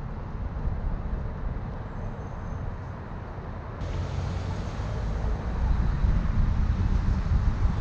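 Road noise of a car driving on rough city streets: a steady low rumble with tyre hiss, getting a little louder about halfway through.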